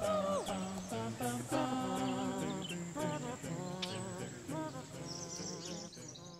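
Background music with a wavering melody line, fading out near the end.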